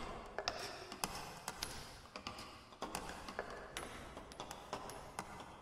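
Sparse glitchy electronic music built from sampled clicks and taps, about two a second and unevenly spaced, with a few short high pinging tones over a faint hiss.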